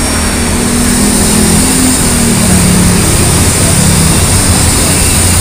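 Busy road traffic: cars and motorcycles running past in a steady, loud wash of engine and tyre noise, with one low engine hum dropping in pitch about two seconds in.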